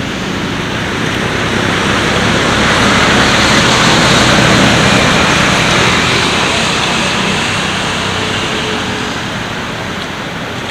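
A road vehicle passing, its engine and tyre noise swelling to a peak about halfway through and then fading.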